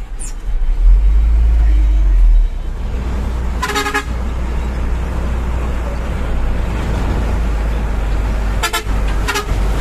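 Dump truck's diesel engine running with a heavy low rumble, loudest in the first couple of seconds. A truck horn toots three short times: once about four seconds in, then twice in quick succession near the end.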